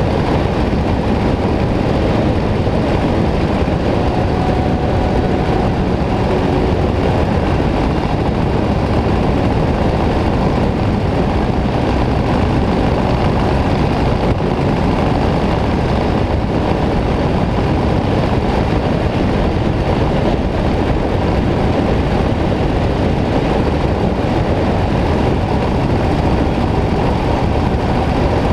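Harley-Davidson V-twin motorcycle cruising at a steady road speed, heard through a bike-mounted action camera: a loud, constant rush of wind noise over the microphone with the engine running underneath, no change in pace.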